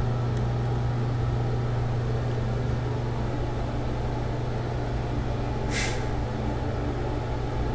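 Steady low hum of a room's machinery or electrical supply, one pitch held throughout, with a brief hiss a little before six seconds in.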